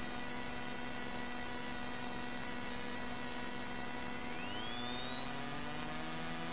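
Rally car engine running at a standstill with a steady whine, then about four seconds in the revs are brought up and the whine climbs steeply in pitch and keeps creeping higher, held up while the car waits to launch.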